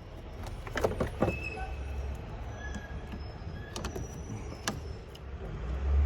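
A few sharp clicks and clatter as the spring clamps of a jump starter's cables are handled and clipped onto the battery terminals, over a steady low rumble.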